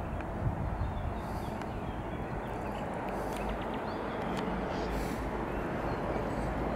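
Outdoor ambience: a steady low rumble and hiss that grows slightly louder toward the end, with a few faint, brief high chirps every second or two.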